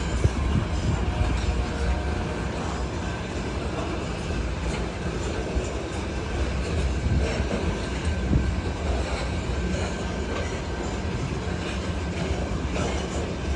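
Loaded grain hopper cars of a long freight train rolling past, their steel wheels rumbling steadily on the rails with some clacking.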